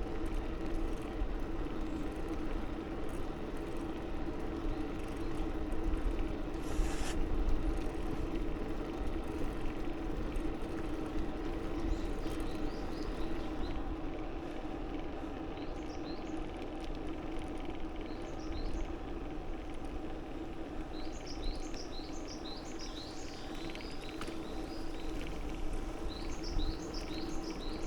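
Steady rumble and hum of riding along on a bicycle, with a brief hiss about seven seconds in. Small birds chirp in quick repeated notes from about halfway on, more often near the end.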